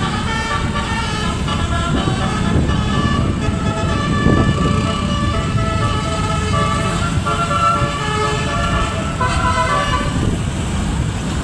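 Basuri multi-tone vehicle horn playing a melody, its tones stepping from note to note, over the low rumble of a running engine. The melody breaks off near the end.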